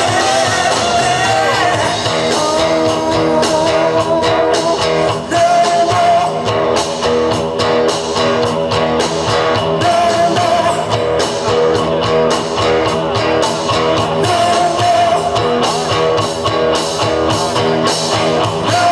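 Live rock band playing: electric guitars, bass and drum kit with a singer's voice, the drums hitting in a steady beat.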